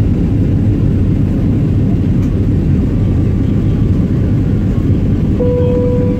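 Steady roar of engine and airflow noise heard inside an airliner cabin in flight, mostly low-pitched. Near the end a steady electronic tone comes in and holds for almost a second.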